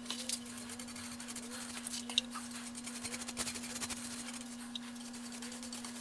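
Dauber brushing purple layout dye across a steel plate: a soft, irregular scratchy scrubbing with small clicks, over a steady low hum.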